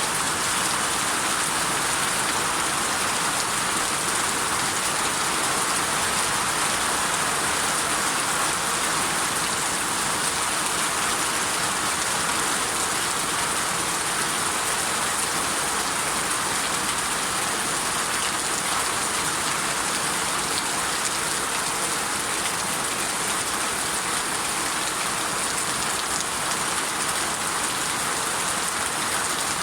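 Steady rain falling, an even, unbroken hiss of drops with no thunder.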